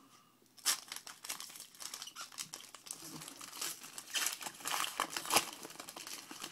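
Foil trading-card pack wrapper crinkling and tearing as it is opened and handled, a busy crackle of many small clicks after a brief quiet start, loudest about five seconds in.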